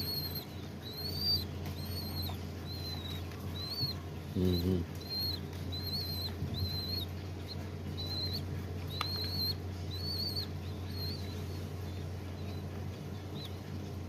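Week-old pigeon squabs peeping: a steady run of short, high, arched squeaks, about one and a half a second, begging as a hand feeds them; the peeping thins out about ten seconds in. A brief low voice, the loudest sound, breaks in about four seconds in.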